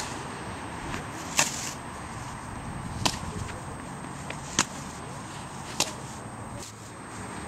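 Tennis balls struck by racquets and bouncing on a hard court in a rally: sharp pops about every second and a half.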